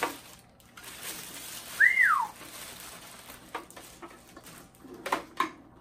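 A single short whistle about two seconds in, rising briefly and then gliding down, over soft rustling and a few light knocks of packaging being handled.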